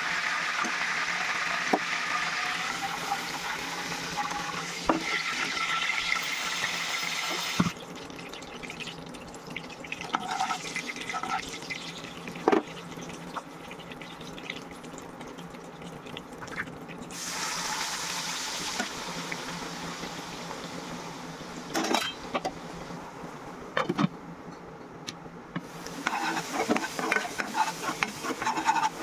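Hot oil sizzling in a non-stick frying pan with whole spices frying in it, loudest for the first several seconds and then dropping suddenly to a softer sizzle with a few sharp knocks. Near the end a steel ladle stirs and scrapes a thick green paste around the pan.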